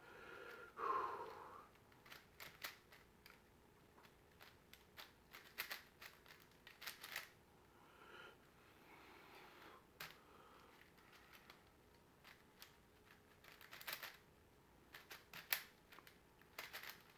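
Faint, irregular plastic clicks and clacks of a 5x5 Rubik's cube's layers being turned by hand during the edge-pairing stage of a solve.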